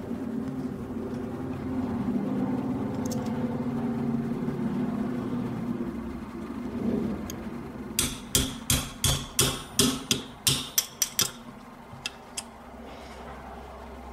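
A steady low hum, then about a dozen sharp metallic taps in quick succession: a hammer striking a pin punch to drive the sear pin out of a Sig Sauer P226 frame.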